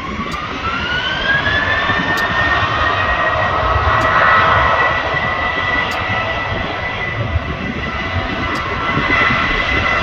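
Jet airliner engines spooling up: a whine rises in pitch over the first two seconds, then holds steady over a low rumble while the sound grows louder.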